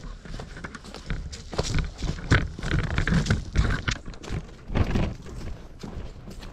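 Footsteps walking on a dirt track, heard through a body-worn action camera as a run of dull thumps.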